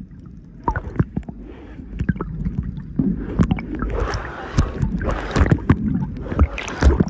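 Water sloshing and bubbling around a camera held underwater, with many sharp clicks and crackles over a steady low rumble. It grows louder and hissier about three seconds in, as the camera nears the surface beside a boat.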